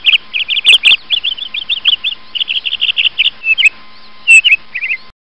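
A bird chirping: a fast run of short, high chirps, several a second, that breaks up into a few scattered notes and stops about a second before the end.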